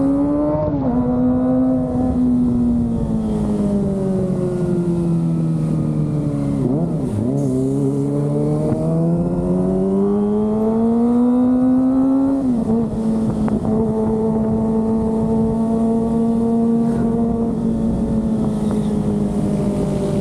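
Kawasaki ZX-25R's 250 cc inline-four engine riding at speed. The engine note rises and steps down at a gear change right at the start, falls for about five seconds as the bike slows, then climbs again to another gear change about twelve seconds in, and holds steady after that.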